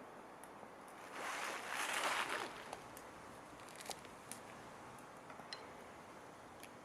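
A brief rushing noise about a second in, lasting about a second and a half, then a wood fire crackling with scattered sharp pops.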